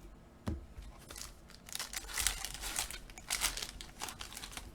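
Foil wrapper of a trading card pack being torn open and crinkled, after a light knock about half a second in.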